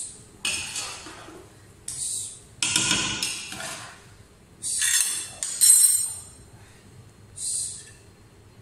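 A metal spoon scraping and knocking against the inside of a large cooking pot as cooked biryani rice is scooped out onto a plate, in about seven separate strokes, the loudest about six seconds in.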